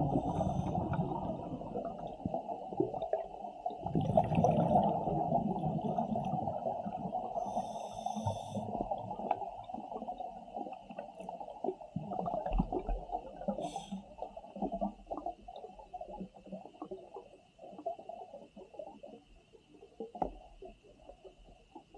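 Scuba diver breathing through a regulator, heard underwater: exhaled bubbles bubbling out in surges, strongest at the start and about four seconds in, growing fainter toward the end.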